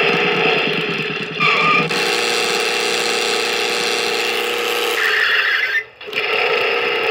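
Road Rippers Lightning Blast toy Mustang Cobra running on AA batteries, playing electronic engine and squeal sound effects from its small speaker over the whir of its motor. The tone wavers, then holds steady. A high squeal about five seconds in cuts off briefly near six seconds.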